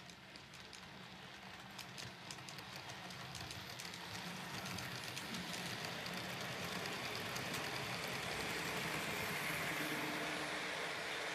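N gauge model train running along the layout track toward the microphone: a rolling, rattling noise from wheels and motor that grows steadily louder, with many fine clicks from the wheels over rail joints and pointwork at first.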